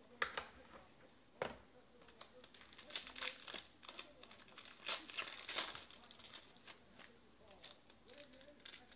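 Foil trading-card pack wrappers crinkling and tearing as they are handled and ripped open by hand, in bursts. Two sharp clicks come in the first second and a half.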